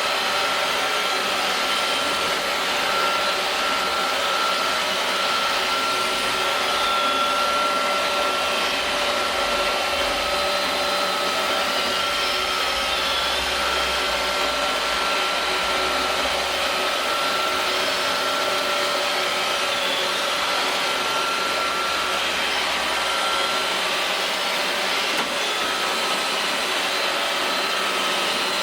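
iRobot Roomba robot vacuum running steadily as it cleans a door mat, its motor and brushes making an even hum with a steady high whine.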